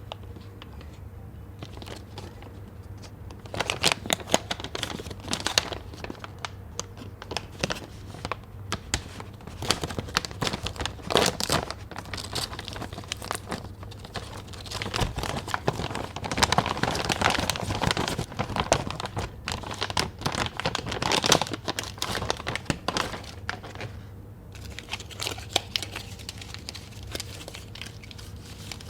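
Snack packaging crinkled and torn open by hand: irregular bursts of crackling that start a few seconds in and die down near the end.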